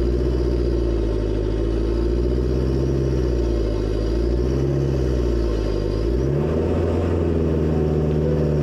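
A 4x4's engine running under way on a dirt track; its note rises and falls with the throttle and steps to a new, steadier pitch about six seconds in.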